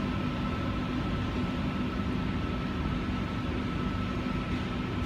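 Steady machinery hum from a stationary double-deck electric train's on-board equipment, running at rest. A low hum and a higher whine hold steady over an even fan-like hiss.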